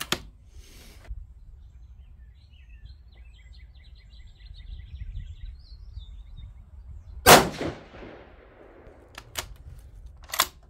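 A single cold-bore rifle shot from a Savage 110 Switchback in 6mm ARC, about seven seconds in, the loudest thing heard, with echo trailing off for about a second. A few short, sharp clicks come before and after it, and birds chirp faintly a few seconds earlier.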